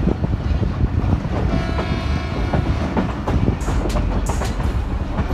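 Passenger train coaches running along the track, heard from an open window: a steady rumble with sharp wheel clicks over the rails. A brief steady tone sounds at about two seconds in.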